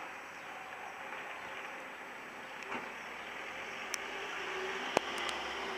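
Steady street background hum of distant traffic, with a few sharp clicks, the loudest about five seconds in.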